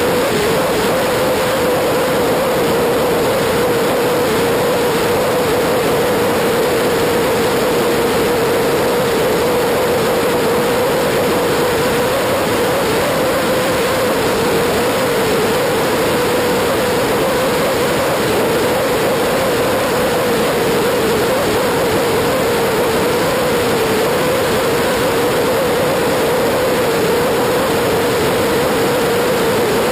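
Steady wind and road roar over a motorcycle-mounted camera at cruising speed. Beneath it, a BMW F800GS's parallel-twin engine hums at a constant, slightly wavering note.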